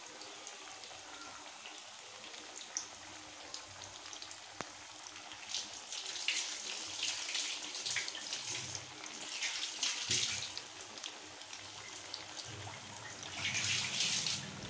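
Chicken 65 pieces, marinated in masala and gram flour, deep-frying in hot oil: a steady sizzle full of small crackles. It swells louder about six seconds in and again near the end.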